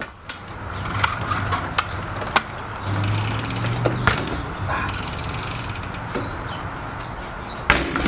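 Mountain bike's rear freehub ratcheting as the wheel coasts, with rapid clicking, over tyres rolling on concrete. Several louder knocks come from the bike being handled, the loudest near the end.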